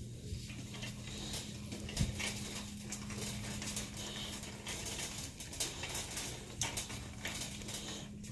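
Shop room tone: a steady low hum with scattered soft clicks and rustles, and a sharper knock about two seconds in.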